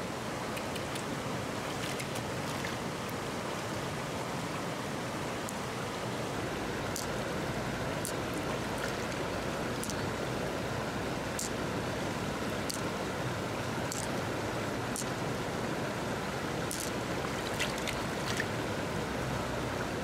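Steady rushing of a flowing river or stream, with scattered faint clicks over it.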